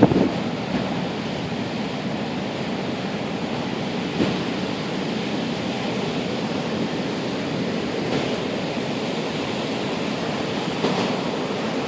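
Sea surf breaking and rushing in a steady roar, with wind buffeting the microphone; brief louder surges right at the start and again about four and eleven seconds in.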